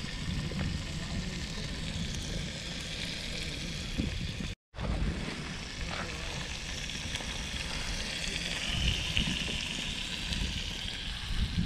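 Whole fish frying in oil in a pan on a portable gas camp stove: a steady sizzle, with low wind rumble on the microphone. The sound drops out for a moment about halfway through.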